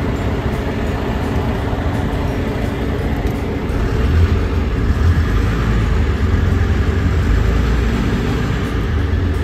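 Tour bus running, with engine and road noise heard from inside the moving bus: a steady rumble that deepens and grows louder about four seconds in.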